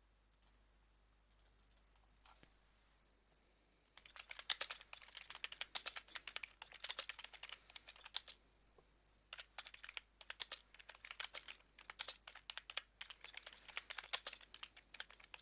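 Typing on a computer keyboard: a few scattered key clicks, then from about four seconds in, fast continuous runs of key clicks, broken by a short pause about halfway through.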